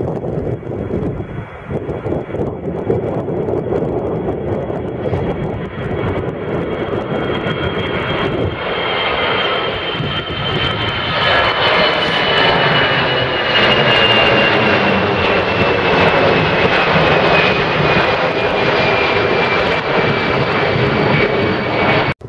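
Twin-engine jet airliner taking off and climbing away, its jet engines at takeoff thrust. The rush of the engines grows louder about a third of the way in, over a high whine that slowly falls in pitch. The sound cuts off suddenly near the end.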